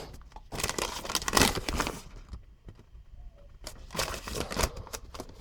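Paper instruction manual being unfolded and handled, rustling and crinkling in two spells, about half a second in and again about four seconds in.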